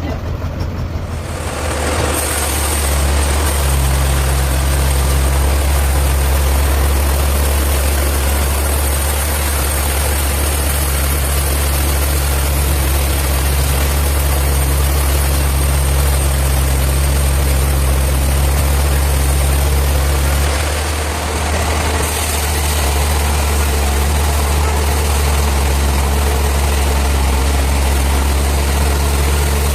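Sawmill saw running through a large hardwood log: a loud, steady deep hum with a rough hiss above it. The sound builds about two seconds in and eases briefly about two-thirds of the way through.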